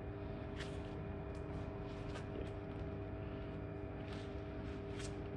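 Electric wire stripping machine running, its motor and gearbox giving a steady hum with several steady tones, with scattered light clicks and scrapes.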